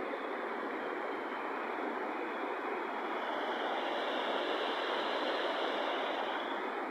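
Steady rushing noise with no breaks or distinct events.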